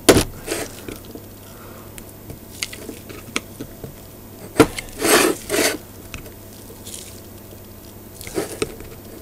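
Bent screwdriver clicking and scraping against a screw and the metal swing bar of an Emotator 1200 rotator during disassembly. There are scattered short clicks, a sharp one about four and a half seconds in followed by two louder rasping scrapes, and two more near the end.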